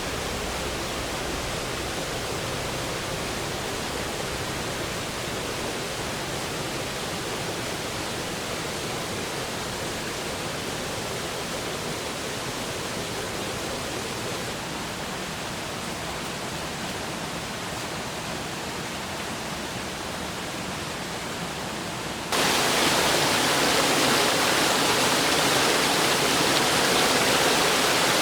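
Steady rushing noise with no distinct events. About three-quarters of the way through it jumps suddenly louder and brighter.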